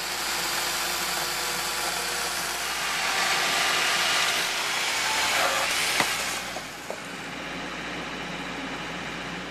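Circular saw running and cutting through a wooden beam, a steady dense noise that eases off a little about six and a half seconds in.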